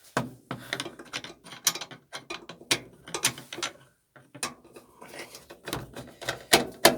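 Ratchet wrench clicking as a fastener is tightened, in short irregular runs of clicks with a brief pause about four seconds in.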